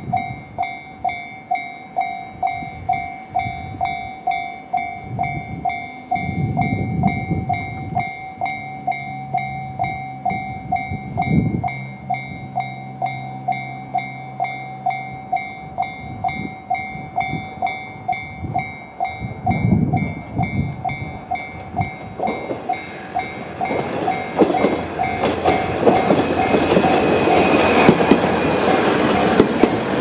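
Japanese level-crossing warning bell in the JR standard electronic tone, ringing evenly at about two strikes a second. From about 22 s in, a KiHa 110 series diesel railcar approaches with its engine and wheels growing louder until it runs over the crossing near the end, the bell still ringing.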